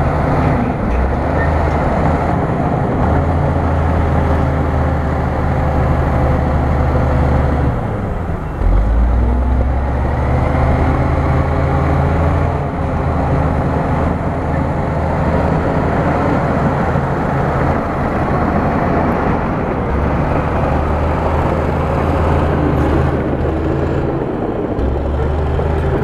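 Bulldozer's diesel engine running hard, its pitch rising and falling as it works, with a brief drop about eight seconds in before it picks up again.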